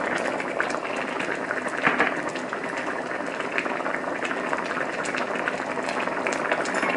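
A pan of coconut-milk red curry at a rolling boil in a wok, bubbling and popping steadily.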